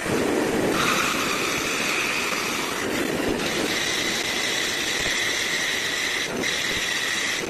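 Bandsaw running, a loud steady machine noise with a high whine that drops out briefly twice.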